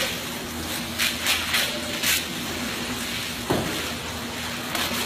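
Steady background hum and noise of a working fish-processing room, with a few short clacks and knocks from about one to two seconds in and a heavier thud about three and a half seconds in.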